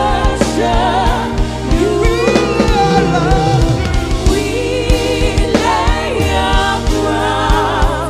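Live gospel worship music: voices singing long, wavering sustained notes over a band with steady bass and a regular drum beat.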